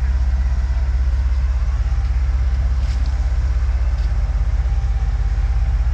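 Excavator's diesel engine running steadily, a deep low throb with an even fast pulse.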